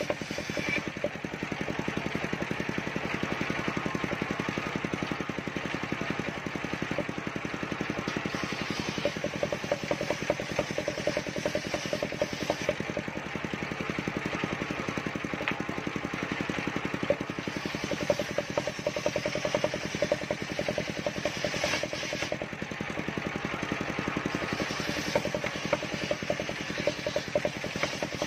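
Large table-mounted circular saw ripping planks of mindi wood, with the engine that drives it running steadily underneath in rapid even pulses.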